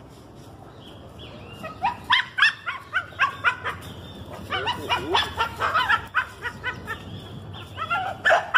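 American pit bull terrier yelping and whining in quick, high-pitched bursts, starting about two seconds in and coming again near the end.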